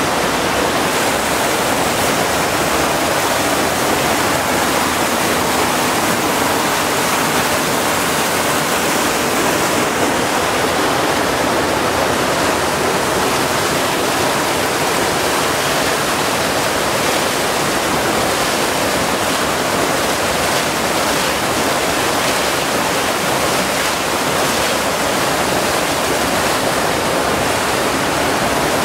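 Rushing water pouring steadily into a traditional Bulgarian water-powered wash tub (valyavitsa), churning without a break.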